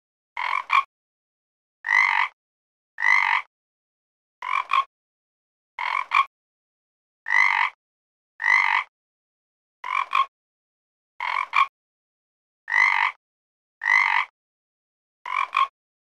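Frog croaking: about a dozen short croaks, roughly one every second and a half, with silence between them. Some croaks are a single note and others are split into two quick notes.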